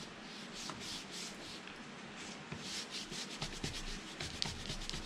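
Quick back-and-forth scrubbing of an applicator over a wooden axe handle, rubbing Obenauf's boot oil into the wood to seal it. The strokes come several a second, faint and hissy.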